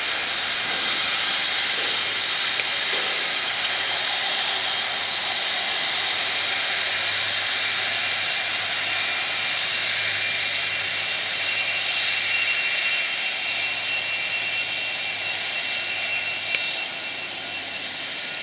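Rolls-Royce RB211 engines of a Boeing 747-400 freighter at taxi power: a high, husky "shaa" hiss with steady whining tones over it, easing off slightly near the end.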